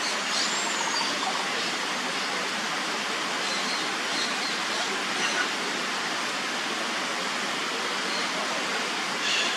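Steady rushing of falling water, with a few faint, high bird chirps over it.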